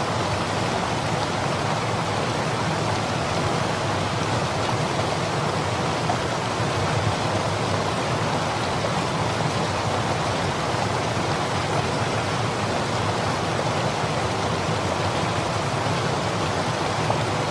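Steady rush of a shallow mountain river running over rocks.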